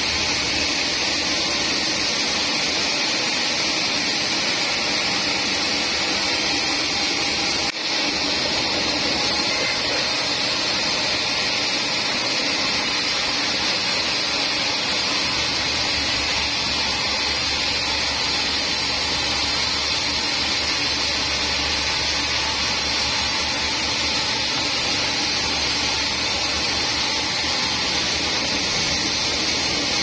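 Band sawmill ripping a teak log: the band saw blade runs steadily through the wood, a loud, even hiss over the hum of the machine.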